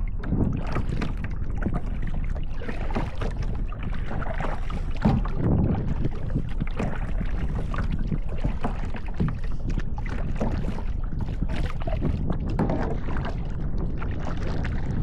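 Kayak paddling: irregular splashes and swishes of paddle strokes in the water, over a steady low rumble of wind on the microphone.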